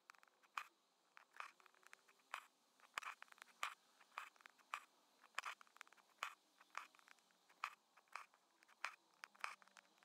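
Embroidery needle and thread drawn through fabric stretched taut in an embroidery hoop: faint, irregular scratchy ticks and rasps, a few each second.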